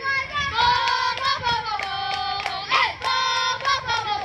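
A group of young girls singing a sing-song softball cheer in unison, with rhythmic clapping that keeps time.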